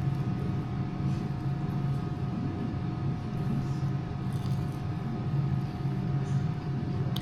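Steady low mechanical hum with a faint constant whine above it.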